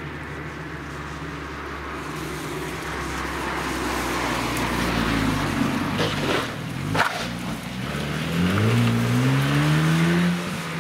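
Rally car coming up a special stage: its engine note falls as it brakes, with a sharp crack about seven seconds in, then the engine pitch climbs steeply as it accelerates hard past and away.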